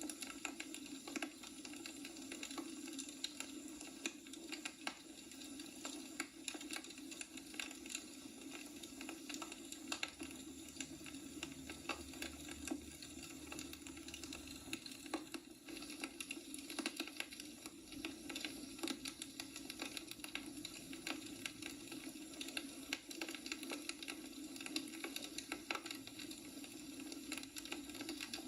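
Firewood burning in a wood fireplace, crackling with frequent, irregular sharp snaps over a steady low hum.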